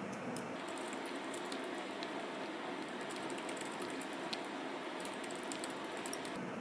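Typing on a low-profile computer keyboard: rapid light key clicks in runs, thinning out in the middle and picking up again near the end, over a steady faint hiss.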